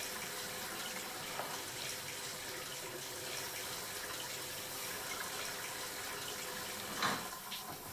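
Water running steadily from a tap into a sink, with a brief louder noise near the end.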